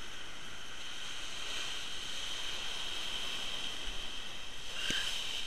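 Heavy surf breaking against a rocky cliff base, a steady rushing noise, with a steady high-pitched whine over it and a single knock near the end.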